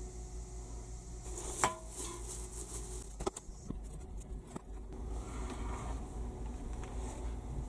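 A few sharp knocks and clicks of things being handled, the loudest a little under two seconds in, over a low steady hum.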